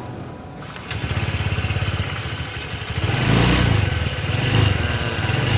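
Honda Vario 150 scooter's single-cylinder engine running, getting louder about a second in and revved higher from about three seconds in. The radiator cover is wedged with a piece of tyre rubber, and the grinding rattle it made before is gone, pointing to the radiator cover rather than the CVT as the source of the noise.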